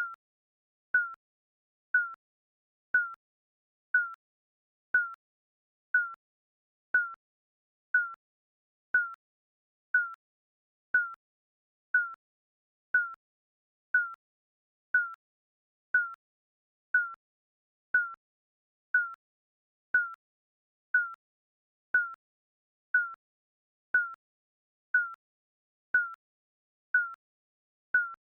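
Digital countdown timer beeping, one short mid-pitched beep every second, each fading quickly, with silence between.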